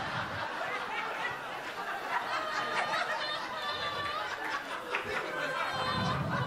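Audience in a comedy club laughing and chuckling for several seconds after a punchline.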